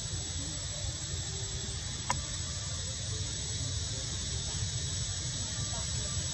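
Steady high-pitched hiss with a thin whine on top and a low rumble underneath. A single sharp click comes about two seconds in.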